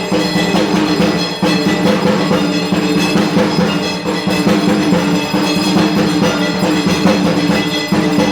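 Dhak, the Bengali barrel drum, beaten with sticks in a fast, dense, unbroken rhythm, its skins ringing.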